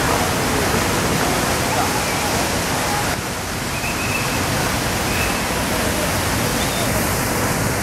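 Steady rushing noise of busy outdoor traffic and crowd, with people's voices mixed in; the level dips slightly about three seconds in.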